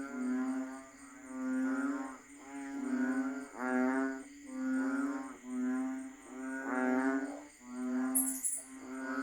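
Chorus of banded bullfrogs (Asian painted frogs): low droning calls, each under a second long, repeating about once a second and overlapping one another.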